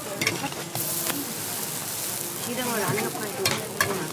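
Hotteok dough sizzling on a flat griddle, cooked without oil, as stainless-steel presses hold the rounds flat, with a few sharp clicks.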